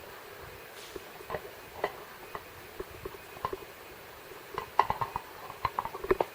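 Irregular light clicks and knocks of small hard objects, a clatter that grows busier about two-thirds of the way in.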